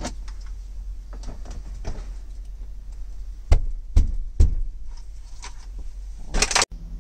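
Three dull thumps about half a second apart, a little past halfway, from work on a truck cab's plastic interior trim. Light clicks and rustling of handling, a brief rustle near the end, and a steady low hum underneath.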